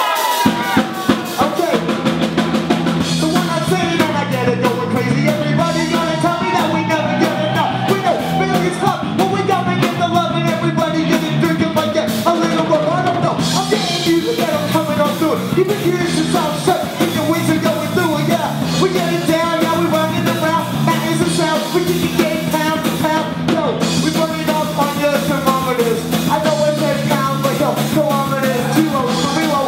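Live band playing loudly: a drum kit with fast, dense cymbal strokes over steady bass notes, and a wavering melody line above them.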